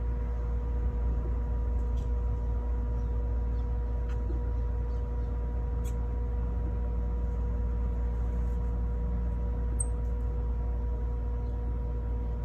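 Steady low machine hum with a constant drone, a few faint clicks, and one short high bird chirp near the end.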